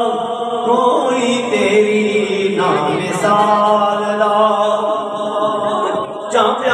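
A man's voice chanting through a microphone in long, drawn-out notes. The longest note is held steadily for about three seconds.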